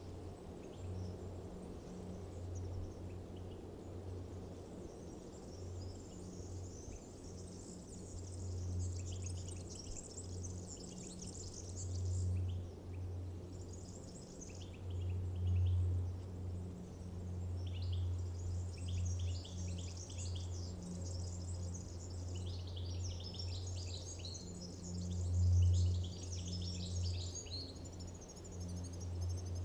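Birds chirping and singing in quick trills throughout, over a steady low hum that swells and fades.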